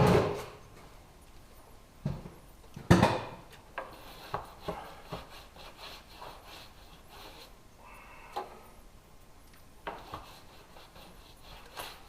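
Hand work on old windshield trim and sealant: scraping and rubbing, with scattered clicks. Sharp knocks come at the start and about three seconds in, and lighter ones about ten seconds in and near the end.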